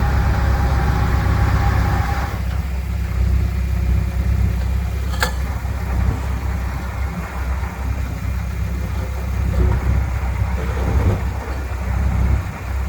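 Diesel engine of heavy earthmoving equipment running steadily with a deep low rumble, plus one sharp click about five seconds in.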